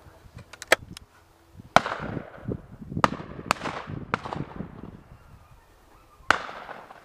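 Shotgun shots on a driven game shoot: about seven sharp reports at uneven intervals, some loud and some fainter. The loudest come about two seconds in and near the end, each trailing off quickly.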